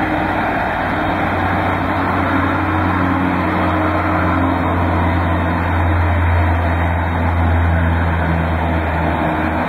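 Steady jet-engine drone of a three-engined McDonnell Douglas MD-11 taxiing in, with a deep hum that swells in the second half.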